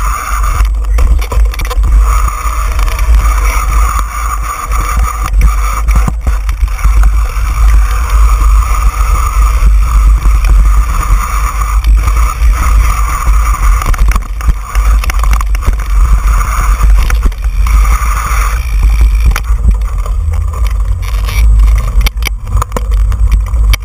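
Wind buffeting and rumbling on the microphone of a camera mounted on a mountain bike riding fast down dirt singletrack, with the bike rattling and knocking over bumps.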